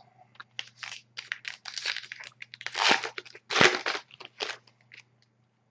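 Crinkling and tearing of a trading-card pack wrapper as it is ripped open and handled, in a run of irregular crackles with the loudest about three seconds in.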